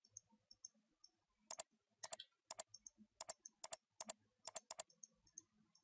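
Faint computer keyboard keystrokes and mouse clicks: about eight short, sharp clicks spaced irregularly, starting about a second and a half in.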